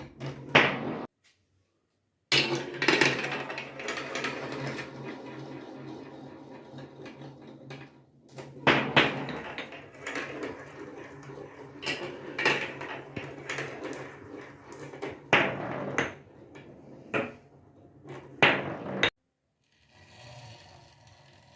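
Marbles rolling and clattering down a plastic marble run, with many sharp clacks as they drop and knock against the track pieces. The sound breaks off abruptly twice.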